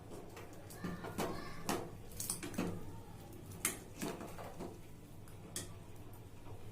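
A spoon clinking and knocking against a cooking pot and containers, about eight light, separate taps spread over several seconds, over a low steady hum.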